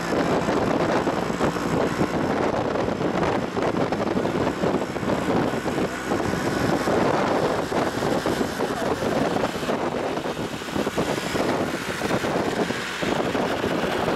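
Steady road and wind noise of a vehicle driving at speed, with wind buffeting the microphone.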